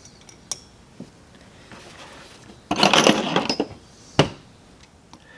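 Small metal parts and hand tools clinking: a few light clicks, then about a second of rattling clatter about three seconds in, then one sharp click.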